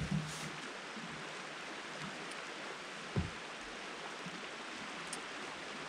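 Steady hiss of a river flowing, with a soft thump about three seconds in.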